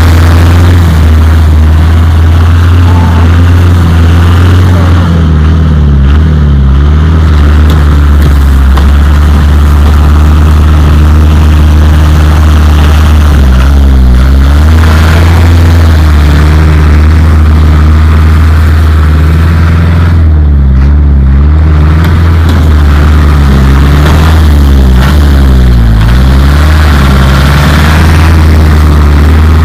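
ARO 4x4's engine running hard and loud as it ploughs through deep snow, the revs dipping and climbing again several times as it works through.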